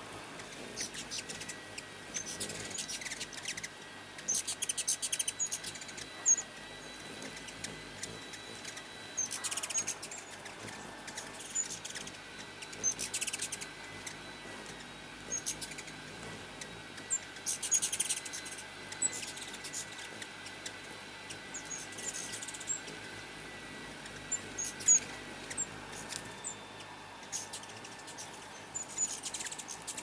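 Ruby-throated hummingbirds squeaking and chipping around nectar feeders: clusters of very high, sharp twitters come every second or two, over and over.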